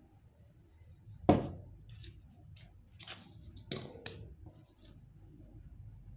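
A single loud knock as a moss-filled ceramic pot is set down on a table, followed by several short rustles and clicks of craft materials being handled.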